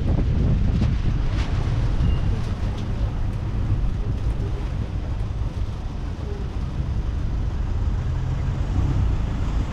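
Steady low rumble of an open-sided airport shuttle tram on the move, with wind buffeting the microphone.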